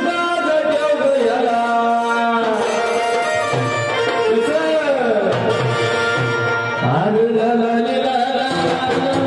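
Marathi gondhal devotional song: a man's voice singing long, ornamented notes that glide up and down, over hand-drum accompaniment.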